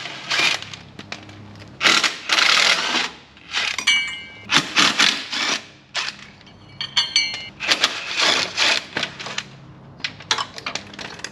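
Metal hand tools clinking and clattering against concrete and the steel mower frame, with bursts of rattling and two brief metallic rings about four and seven seconds in.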